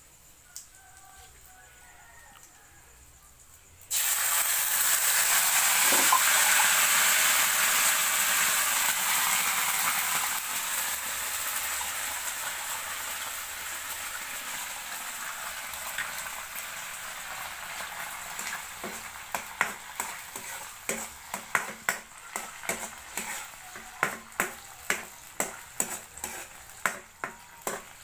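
Ingredients hitting hot garlic oil in a wok: a sudden loud sizzle about four seconds in that slowly dies down. From about two-thirds of the way through, a metal ladle clicks and scrapes against the wok about twice a second as the mixture is stirred.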